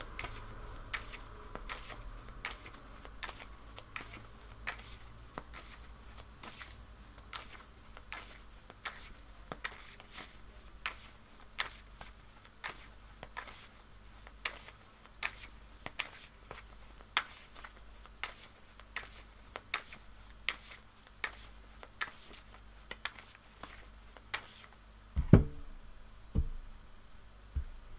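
Deck of tarot cards being shuffled by hand, with a short flick of cards about twice a second. Near the end the shuffling stops and cards are put down on a cloth-covered table with two soft thumps, the first the loudest sound.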